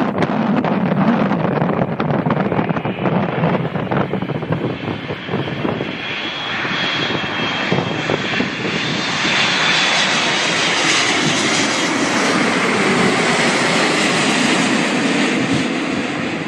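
Airliner jet engines passing close by: a steady engine noise with a high fan whine that swells midway and then eases off. Gusts of wind buffet the microphone in the first few seconds.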